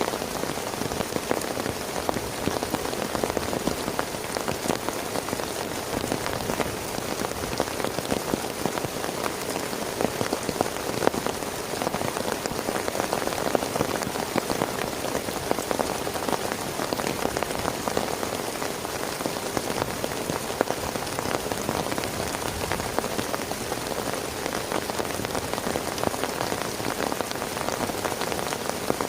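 Heavy rain falling steadily on a surface: a dense, even hiss of countless small drop hits with no let-up.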